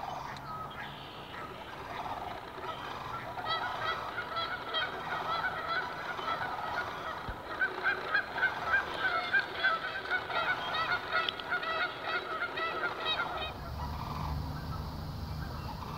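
A flock of Canada geese honking: many overlapping calls that build up a few seconds in, are thickest in the middle and fade out near the end.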